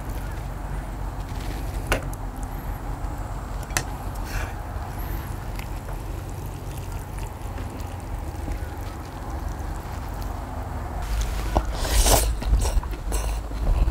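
Metal tongs and chopsticks clicking against a ceramic plate as a platter of noodles and raw beef is tossed, a few sharp clicks over a steady low rumble. About eleven seconds in, loud wet slurping of noodles begins.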